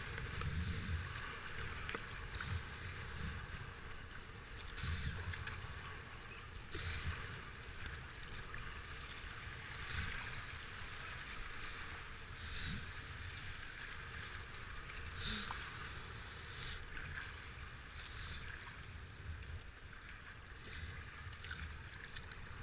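Rushing whitewater of a river rapid heard from a kayak, with splashes from paddle strokes every couple of seconds and low wind buffeting on the camera microphone.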